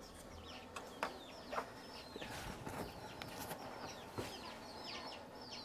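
Birds chirping in the background: many short, high chirps that fall in pitch, with a few faint clicks among them.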